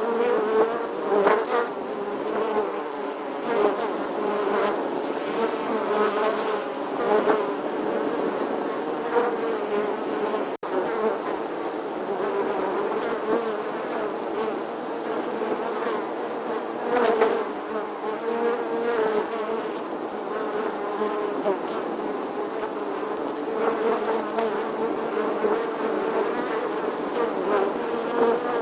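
A bee buzzing continuously, its hum wavering a little in pitch and loudness, with a momentary break in the sound about ten seconds in.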